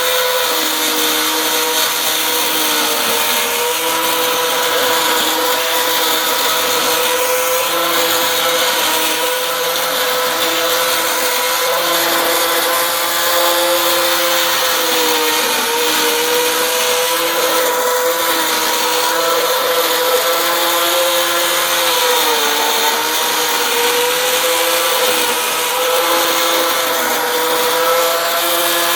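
Angle grinder spinning a trimmer line, a steady high-pitched motor whine cutting tall grass. The pitch dips briefly now and then as the line takes the load.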